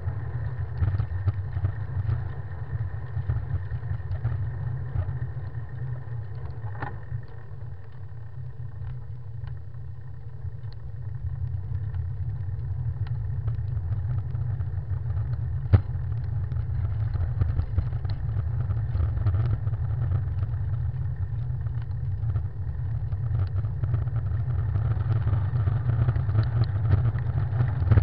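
Riding noise from a bicycle heard through a handlebar-mounted camera: wind buffeting the microphone and road rumble, with small rattles of the bike over the road surface. It eases about eight seconds in and builds again toward the end, with one sharp click partway through.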